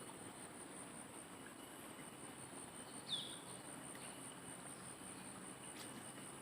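Insects shrilling in a faint, steady, high-pitched drone, with one brief falling chirp about three seconds in.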